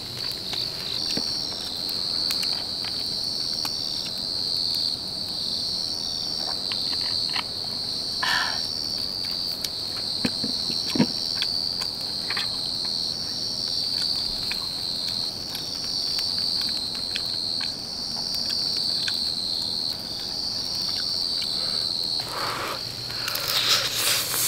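Crickets chirping in a steady, high, slightly pulsing trill, with a few faint clicks and a louder rustling noise near the end.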